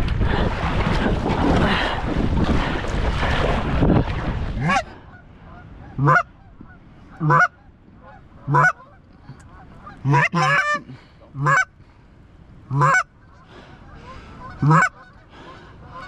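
Wind buffeting the microphone for the first few seconds, cutting off suddenly. Then a series of single goose honks, one every second or two, each breaking from a low note up to a high one.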